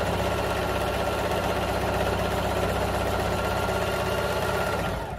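Electric sewing machine running fast and steadily, its needle stitching through the thick coiled fabric of a jelly-roll rug; it stops near the end.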